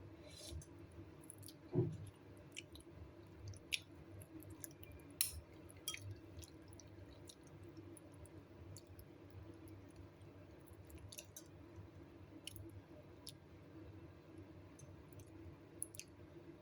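Faint scattered clicks and small knocks, with a dull thump about two seconds in and a sharper click about five seconds in, over a low steady hum.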